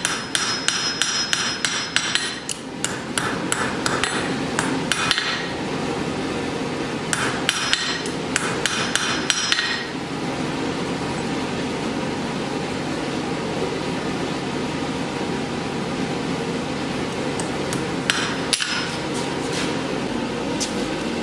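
A hand hammer strikes a hot knife blade on a steel anvil in quick runs of ringing blows, several a second, with short pauses between runs. The blows stop about halfway through, and a steady background noise carries on, with a few knocks near the end.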